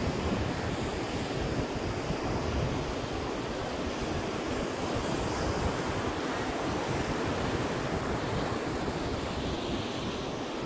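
Ocean surf breaking and washing up a sandy beach, a steady rush of noise, with wind buffeting the microphone.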